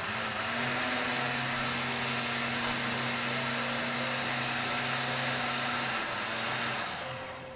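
Small countertop blender running at a steady high speed, puréeing basil, soy milk and lime juice into a liquid dressing. It starts at once, runs evenly for about six seconds, then fades as the motor spins down after being switched off.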